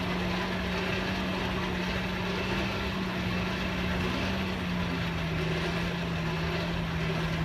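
Steady mechanical drone of a running motor with a constant hum, its pitch stepping slightly lower about halfway through, over a background wash of noise.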